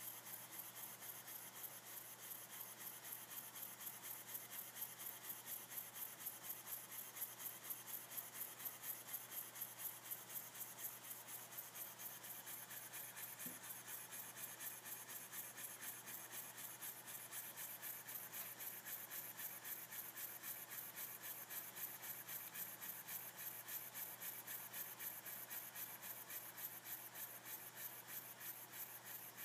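Small model steam mill engine running steadily, giving a quick, even train of exhaust puffs with each stroke of its piston.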